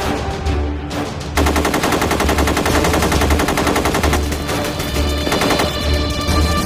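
Film soundtrack of a machine gun firing rapid, sustained automatic fire, starting about a second and a half in, over a music score with held tones and deep pulses.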